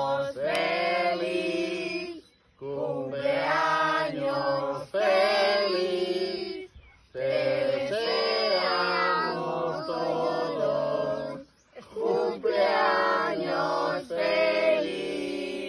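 A group of men and women singing together in long phrases, with a short pause after each phrase.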